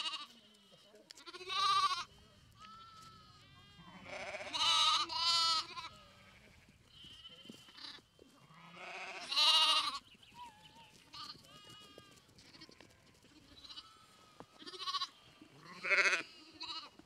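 Lambs bleating repeatedly: several loud, quavering calls with quieter bleats in between.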